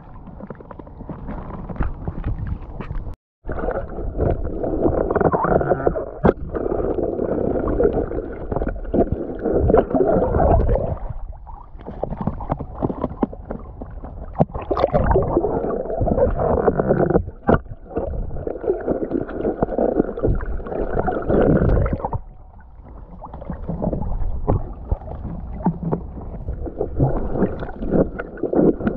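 Seawater sloshing and gurgling around a waterproof action camera, heard muffled. It comes in long surges with a couple of short lulls, and the sound cuts out completely for a moment a few seconds in.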